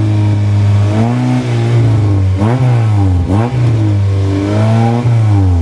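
A Honda Civic EP3 hatchback's engine being revved while parked, held at raised revs, with the pitch dipping and climbing again three or four times.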